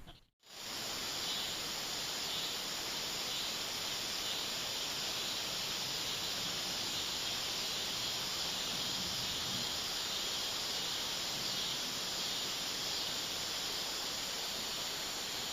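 Steady chorus of insects, a dense high buzzing that holds without a break, starting abruptly just after a brief cut in the sound.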